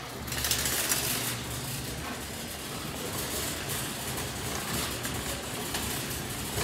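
Steady rattling, rumbling noise of moving through a large warehouse store, over a low hum, a little louder in the first second or so.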